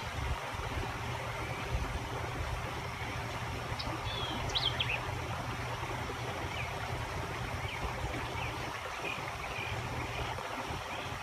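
Storm runoff water rushing steadily, with a few short bird chirps near the middle.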